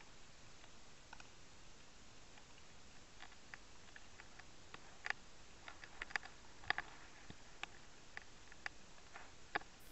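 Underwater ambience: a faint steady hiss with irregular sharp clicks and ticks, which come more often from about three seconds in.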